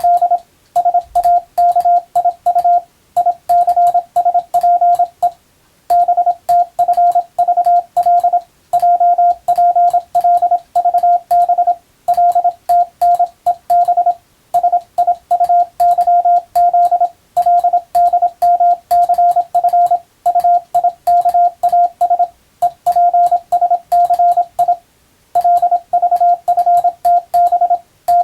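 Morse code (CW) tone at a single steady pitch, keyed rapidly into dots and dashes. Short pauses between words come every few seconds.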